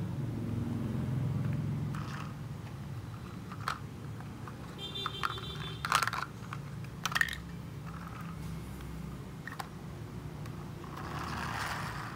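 Plastic toy garbage truck handled and moved about on a concrete floor: scattered light clicks and knocks, two sharper ones about six and seven seconds in, over a steady low hum.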